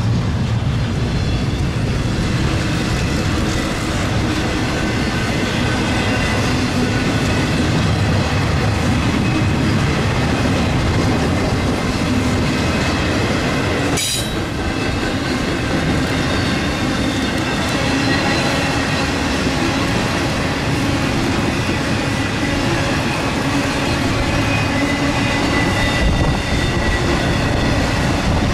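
Freight cars of a Norfolk Southern intermodal train rolling past, a steady loud rumble of wheels on rail with thin high squealing tones coming and going. There is a brief break about halfway through.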